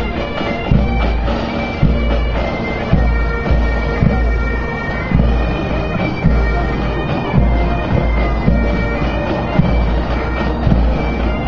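Bagpipes playing a march, with a steady thump about once a second under the held drone and melody.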